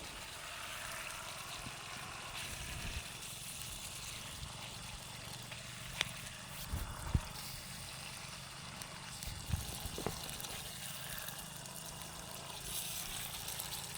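Chicken in a pan sizzling and bubbling faintly and steadily as its water cooks off, with a few sharp clicks about halfway through.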